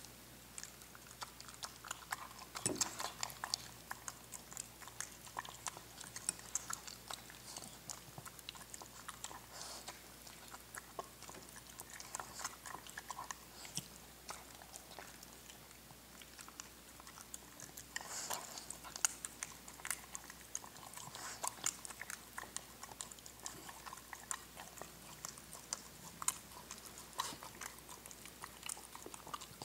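A Xoloitzcuintli dog eating chopped vegetables from a bowl, with wet chewing and mouthing full of short, irregular clicks. The old dog has only four fangs left, so his food is chopped up for him.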